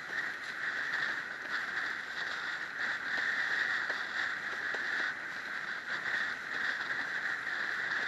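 Wind and water rushing past a windsurf board planing at speed, a steady hiss, with faint slaps of the board on the chop.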